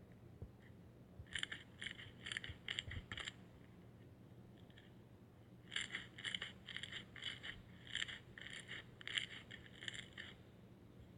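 Slime being squeezed and pressed by hand, giving runs of short crackling pops about two a second: a short run early, then a longer one from about halfway through.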